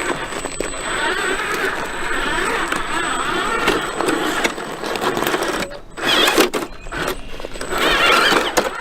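Electric RC scale truck driving over rough ground, its motor whining while the tyres crunch over dirt and gravel, with brief stops and bursts of throttle.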